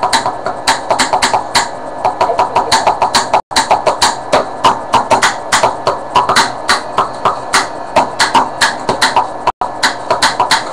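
Improvised drumming on household objects: quick, even taps, about five a second, played as a beat. The sound cuts out for an instant twice.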